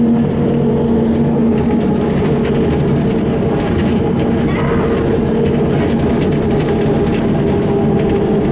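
Ikarus 260.50 city bus's diesel engine and drivetrain running steadily as the bus drives along at an even pace, heard from inside the passenger cabin with road noise.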